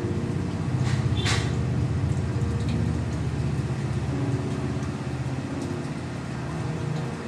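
Motorcycle passing by, its engine running steadily and slowly fading, with a couple of brief clicks about a second in.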